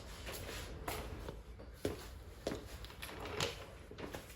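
A few light, scattered clicks and knocks of small mounting hardware being handled at a truck's door mirror mount, over a faint low hum.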